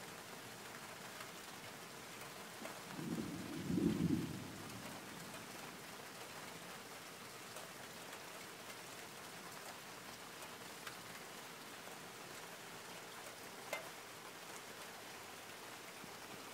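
Steady rain with a short, low rumble of thunder that swells about three seconds in and fades within two seconds.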